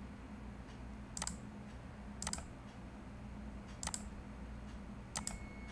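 Computer clicks while working at a desk: about four sharp, separate clicks roughly a second apart, over a low steady hum.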